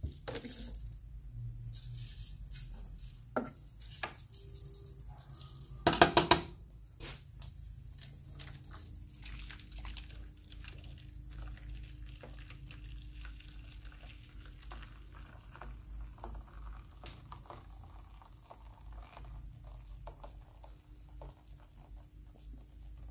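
Coffee-machine cleaning solution foaming and fizzing on a heavily soiled coffee-machine drip tray, a faint, dense crackle of bursting bubbles. A brief loud noise comes about six seconds in.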